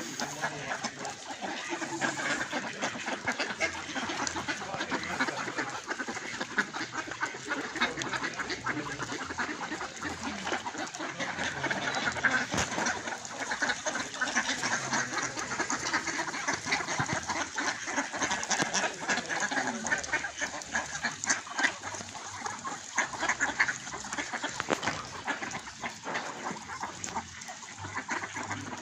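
A large flock of mallards quacking, many calls overlapping without a break.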